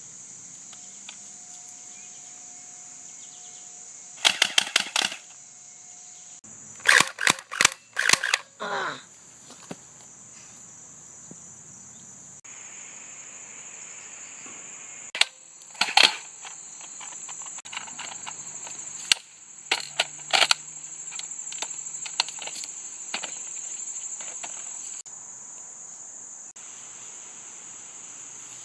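Airsoft guns firing in rapid bursts of sharp clicking shots, four groups spread through, over the steady high buzz of insects.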